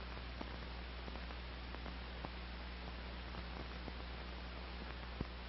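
Steady low mains-type hum and hiss with faint scattered clicks and crackle, one slightly louder click near the end: the background noise of an old film soundtrack.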